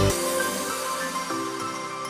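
Background music: the heavy bass beat stops right at the start, leaving held melodic notes.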